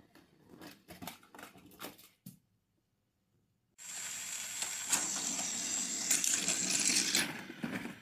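Plastic toy trains and track clattering: a handful of sharp plastic knocks. Then, after a sudden cut, a few seconds of dense rattling with a steady high whine that stops about seven seconds in.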